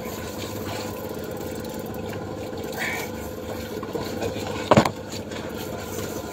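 Steady low hum of an engine running on a fishing boat, with one short loud thump about three-quarters of the way through.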